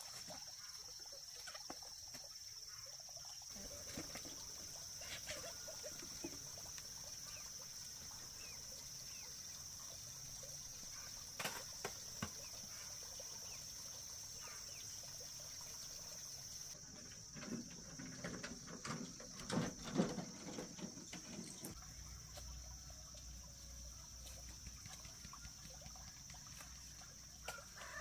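Quiet outdoor garden ambience with a steady high-pitched drone throughout and scattered light clicks. About two-thirds of the way in come a run of soft knocks and rustling, from work among the garden plants.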